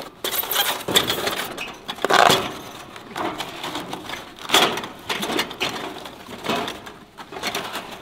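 Packing paper and styrofoam being pulled out from inside a new Paseco reflective kerosene heater, rustling and crunching in irregular bursts.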